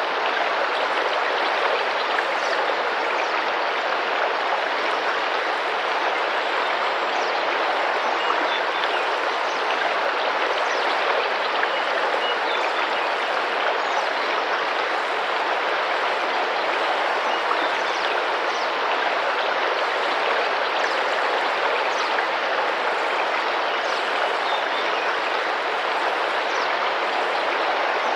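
Tropical rainforest river flowing, a steady gentle splashing rush of water, with faint short high chirps now and then.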